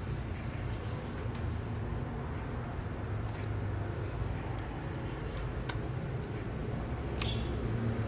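A few faint, sharp clicks, a second or two apart, over a steady low hum.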